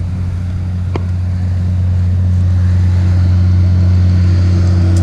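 Road traffic from a nearby highway with a steady low hum, growing slowly louder through the second half as vehicles pass. A single sharp click about a second in.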